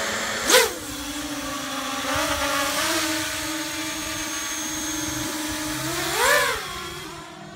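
Home-built FPV racing quadcopter with Emax RS2205 2300 kV brushless motors and 5-inch props, its motors whining: a sharp throttle punch as it lifts off about half a second in, a steady hover tone with small pitch changes, a louder surge as it swoops past about six seconds in, then fading as it flies away near the end.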